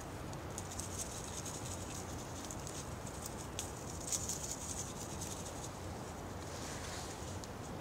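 Fine crackling and rustling of dry leaves as a white-tailed deer browses and chews, in bursts (the strongest a little past halfway), over a steady outdoor background hiss.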